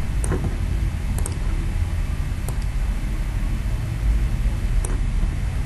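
A handful of sharp computer mouse clicks, irregularly spaced, from Format Painter being applied to text, over a steady low background rumble.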